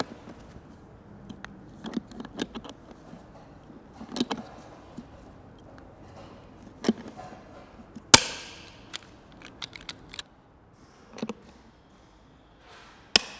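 Hand pop-rivet gun setting rivets into a plastic airbox: a string of sharp snaps as the rivet stems break, the loudest about eight seconds in, with smaller clicks and rattles of the tool and rivets between.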